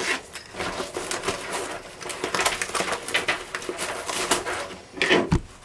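Rustling of a fabric tool bag and small clicks of metal lockpicking tools being handled and packed away, with one low bump against the camera near the end.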